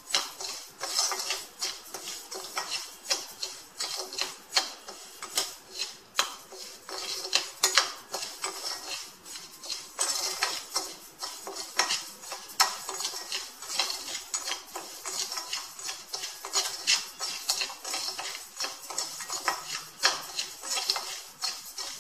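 A spoon stirring and scraping dry kodo millet (varagu) grains around a kadai as they are dry-roasted without oil: an irregular run of rustling scrapes with light clinks of the spoon against the pan.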